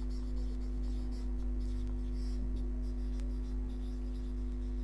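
Felt-tip marker scratching across a whiteboard in short strokes as words are written, over a steady electrical hum.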